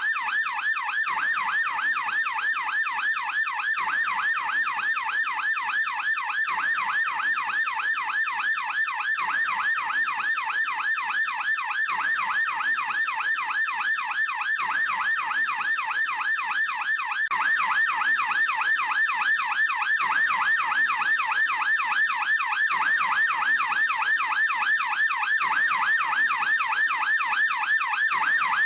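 Swiss police siren on its fast yelp setting: a rapid, evenly repeating up-and-down wail. It gets a little louder about two-thirds of the way through.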